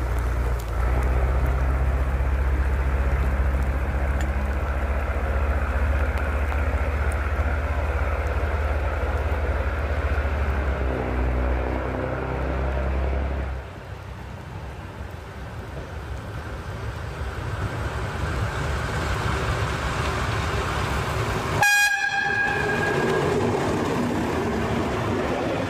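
Two-car diesel railbus approaching and passing close by: engine and wheel noise building, with one short horn toot near the end. A heavy low rumble fills the first half and stops suddenly about halfway.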